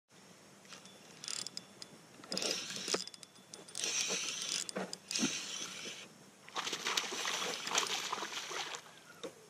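Hooked largemouth bass thrashing and splashing at the surface, in several irregular bursts over a few seconds.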